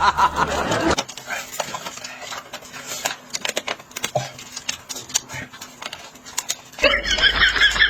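Eating sounds: scattered short clicks and smacks of chewing. About seven seconds in, a wavering, warbling high-pitched sound starts.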